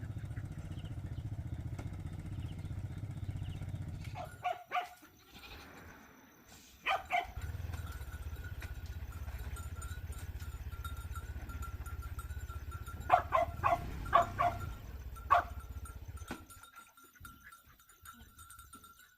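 A small engine running steadily, falling silent for a few seconds and then running again before it stops near the end. Over it come several short animal calls in quick clusters.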